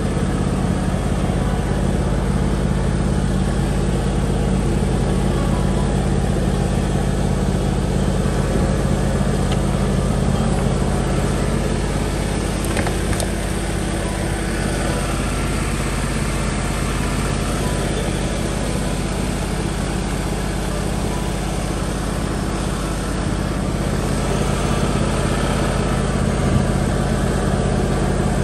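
John Deere X320 lawn tractor engine running at a steady idle.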